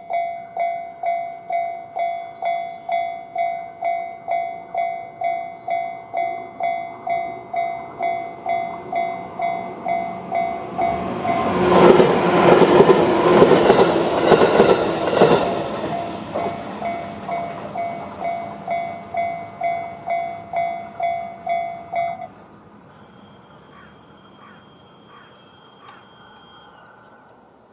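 Level-crossing warning bell, the JR standard electronic alarm, dinging steadily in repeated strokes of several pitches. About eleven seconds in, a 211-series electric train passes for about five seconds, louder than the bell, with wheel clatter over the rail joints. The bell cuts off suddenly about twenty-two seconds in, once the train has cleared.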